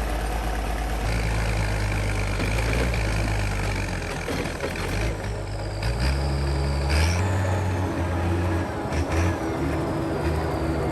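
A heavy machine's engine runs, its pitch stepping up and down several times as the revs change. A faint high whine falls in pitch in the second half.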